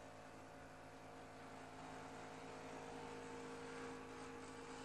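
A steady low hum made of several even tones, with faint hiss underneath, rising slightly in level over the first few seconds.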